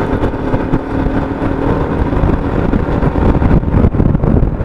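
Heavy wind noise buffeting an SJCam action camera's microphone on a moving motorcycle, with a steady engine tone underneath. This is the wind-noise problem that drowns out the rider's voice.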